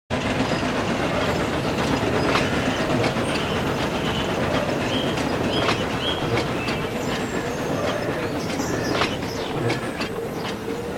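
Dubbed Thomas & Friends train sound effects: rolling stock clattering along with many sharp wheel clicks and short high squeals over a steady running rumble.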